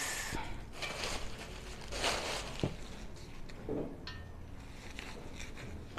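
Faint rustling of plastic wrap while a wrapped stainless steel frying pan is lifted and handled, with a single light tap about two and a half seconds in.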